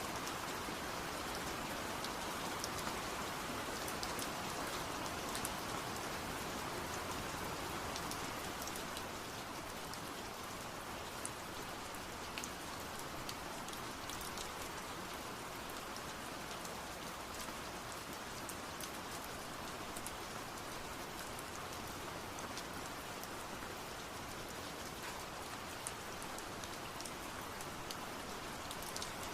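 Steady rain falling, an even hiss with scattered drops ticking on a hard surface; it eases slightly about a third of the way in.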